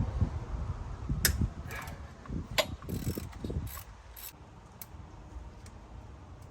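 Hand work on a car engine's timing belt tensioner and pulleys: a run of sharp metallic clicks and low knocks for about four seconds.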